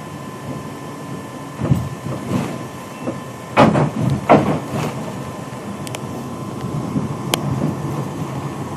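Riding inside a moving vehicle: steady engine and road noise, with a few loud knocks and rattles from the body, the loudest between about three and a half and four and a half seconds in.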